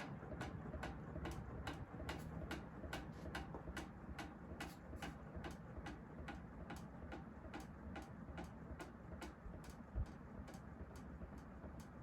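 Kichler Todo industrial ceiling fan running, a steady low hum under a regular tick about three times a second. A single low thump about ten seconds in.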